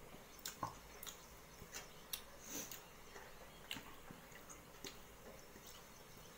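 Faint scattered clicks, taps and soft scrapes of a steel bowl against a steel plate as dal is poured and scraped out onto rice, about eight separate knocks.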